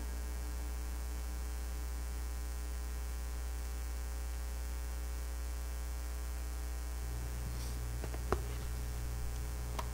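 Steady electrical mains hum from the church's sound system, with the hum getting a little fuller about seven seconds in. A single sharp click comes near the end, followed by a few fainter clicks.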